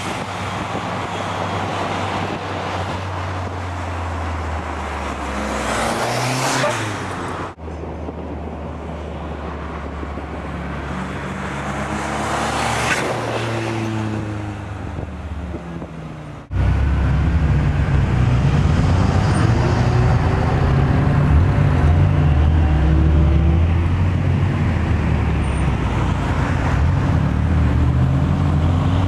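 Car engines running while driving along a street, rising and falling in pitch as the cars speed up and slow down. The sound breaks off abruptly about seven and a half and sixteen and a half seconds in, and is louder and steadier after the second break.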